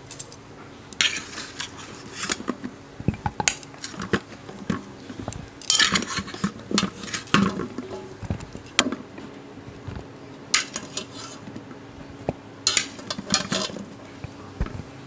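Dishes and cutlery clinking and scraping: irregular knocks of utensils against bowls and plates, some in quick clusters, with no steady rhythm.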